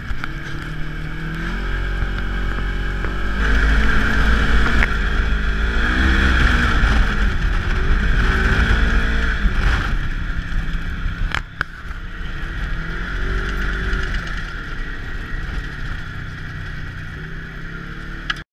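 Polaris RZR 1000 side-by-side's twin-cylinder engine running on the move, heard from inside the cab, its revs rising and falling again and again. Two sharp knocks sound about eleven seconds in, with a brief drop in level.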